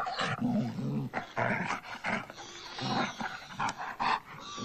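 A German shepherd dog growling and snarling in a fight with another animal, a run of rough growls one after another.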